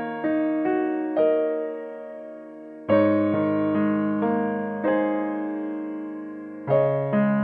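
Background piano music: slow, gentle chords and single notes, each struck and left to fade before the next.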